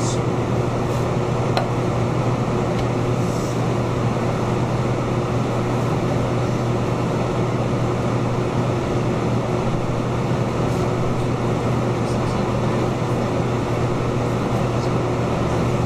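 Steady ventilation noise with a low hum underneath and no breaks or changes.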